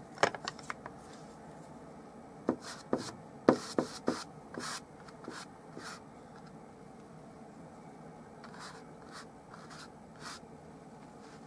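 Large flat brush dabbing and scrubbing oil paint onto stretched canvas: a quick cluster of sharp taps and scrapes in the first few seconds, then a few softer strokes around six and ten seconds in. A faint steady hum runs underneath.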